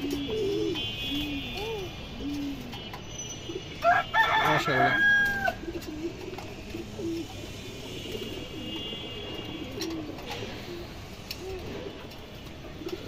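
Domestic pigeons cooing over and over in short, low, arched calls. About four seconds in, a rooster crows once, louder and higher, for about a second and a half.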